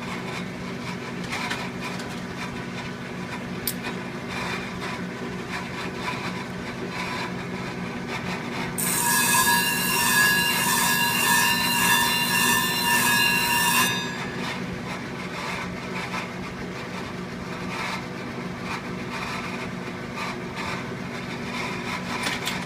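Clipper blade sharpening machine running with a steady motor hum. For about five seconds in the middle, a clipper blade grinds against the grit-charged wheel with a loud, ringing scrape, which then cuts off.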